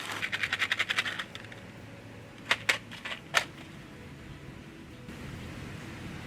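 Crunchy objects cracking under a car tyre: a quick run of crackling, then a few separate sharp snaps.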